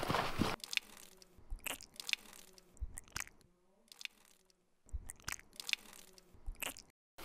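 Footsteps crunching slowly on dry grass and leaves, a few faint crunches at a time with quiet gaps between. A louder noisy stretch cuts off about half a second in.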